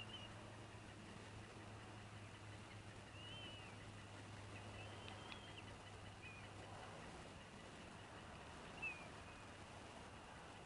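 Faint, scattered high-pitched bird chirps, short and wavering, a few seconds apart, with the sharpest one near the end, over a steady low hum.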